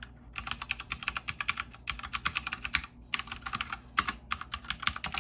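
Ajazz K870T mechanical keyboard being typed on: quick runs of key clicks in four short spells with brief pauses between them.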